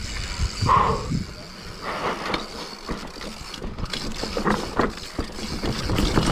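Mountain bike rolling fast down a rough dirt trail: a steady rush of tyre and wind noise with a low rumble, broken by many quick clacks and rattles from the bike over bumps.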